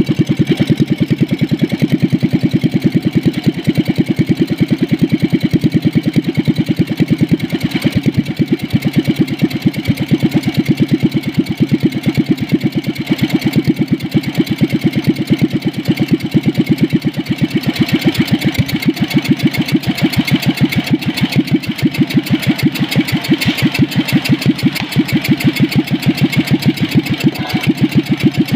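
Small diesel engine converted to petrol with a carburettor and CDI ignition, running with an even, regular firing beat that sounds like an old British motorcycle. A little over halfway through it runs slightly faster and harder.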